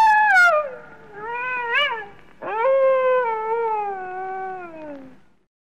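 Coyote howling: three drawn-out calls that slide down in pitch. The second is short and rises to a sharp peak before dropping, and the last is the longest and lowest, fading out near the end.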